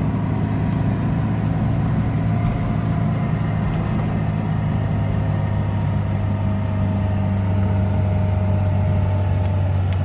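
Lada Niva's 1.7-litre four-cylinder engine and drivetrain heard from inside the cabin while driving at a steady speed: a constant low hum with a whine above it that slowly sinks in pitch.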